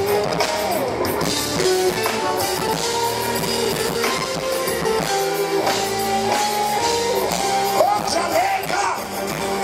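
Live band playing an instrumental passage of a song: electric guitar, keyboards, bass and drums. Near the end a brief wordless vocal line rises and falls over the band.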